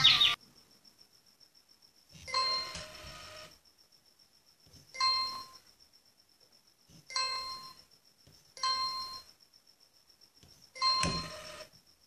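Makeblock mTiny coding robot set sounding five short electronic ding-dong chimes, spaced a couple of seconds apart.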